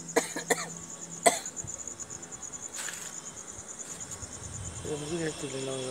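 Crickets chirping in a steady, fast, even pulse, with three short sharp knocks in the first second and a half.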